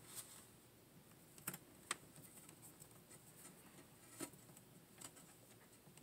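Faint, scattered small clicks and light scraping from a short-handled screwdriver and screw against a plastic drawer-latch catch as the screw is pressed into the wooden drawer rail.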